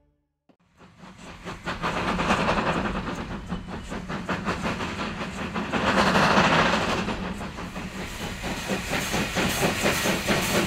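Steam locomotive hauling a train, its exhaust beating in quick chuffs over a steady hiss of steam. It fades in from silence within the first second and is loudest about six seconds in.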